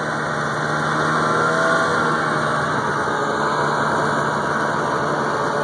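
Snowmobile engine running at a steady speed.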